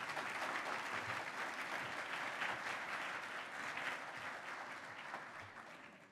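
Audience applauding, fading away over the last second or so.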